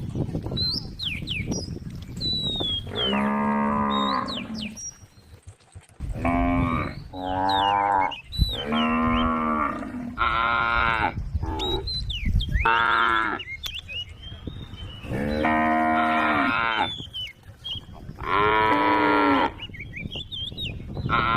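Cows mooing: a string of about nine long calls, one every second or two, some running into each other.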